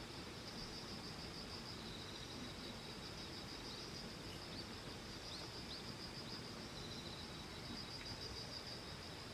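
Insects trilling steadily in a pulsing high-pitched chorus, with a few short chirps about halfway through.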